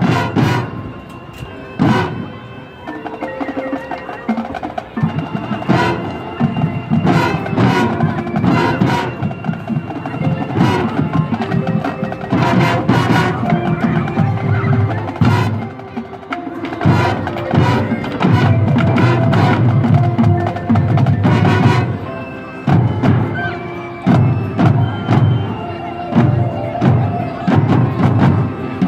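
Marching band playing: held notes from the winds and brass, with many sharp drum and percussion strikes over them.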